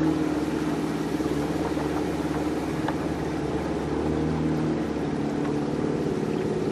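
Small motor boat's outboard engine running steadily underway, its pitch and level easing off slightly mid-way and picking up again near the end, with water wash under it.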